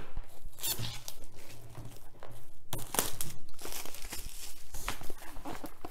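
Clear plastic shrink wrap crinkling and tearing as it is pulled off a boxed canvas by hand, in irregular crackles with a few sharper, louder ones.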